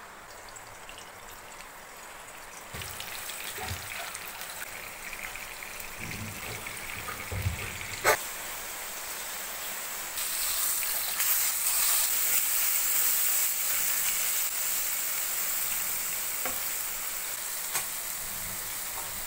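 Masala-coated whole fish shallow-frying in hot oil in a nonstick pan, a steady fizzing sizzle that grows louder about ten seconds in. There is one sharp click about eight seconds in.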